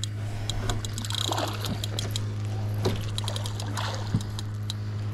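Water splashing and sloshing around a hooked blue catfish thrashing at the surface beside the boat, over a steady low hum, with scattered light ticks.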